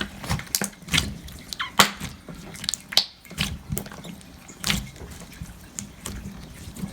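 Small plastic container lid and seal being pried off by hand: a string of irregular sharp clicks and crackles as the tight-fitting lid is worked loose.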